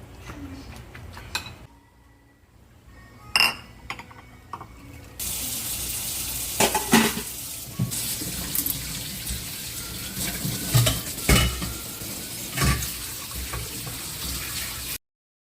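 Kitchen dishes and cutlery clinking and knocking. A few clicks come first; after about five seconds a steady hiss comes in under repeated clinks and cuts off suddenly near the end.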